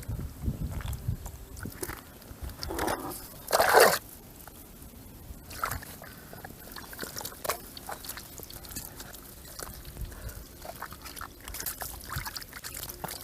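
Water and wet mud sloshing and splashing at a fishing hole, with small wet clicks and rustles throughout and one loud half-second splash about three and a half seconds in.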